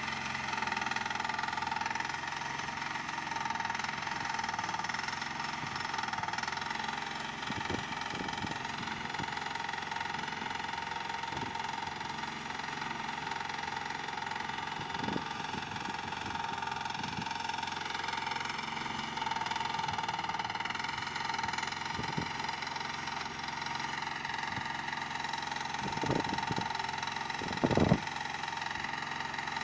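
Small engine of a mini excavator running steadily while its hydraulic arm digs soil. A few short clunks of the arm and bucket stand out, the loudest two close together near the end.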